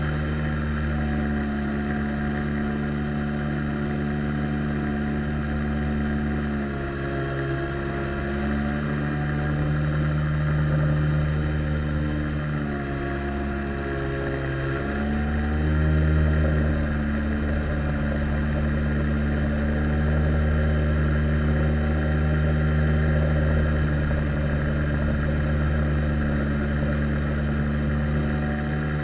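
Outboard jet motor pushing an inflatable boat along at speed, running steadily, its pitch dipping briefly about seven seconds in and again around thirteen to fifteen seconds in before picking back up.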